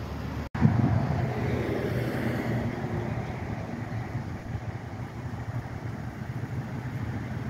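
Steady rush of road traffic going by, with some low rumble and wind on the microphone. There is a brief dropout about half a second in, and then the rush eases slowly.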